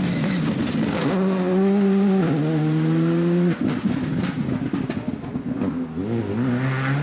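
Škoda Fabia rally car's turbocharged four-cylinder engine at high revs as it passes, dropping in pitch about two seconds in and cutting off around three and a half seconds in. Crackling follows as it goes out of sight, then the engine note rises again near the end as it accelerates away.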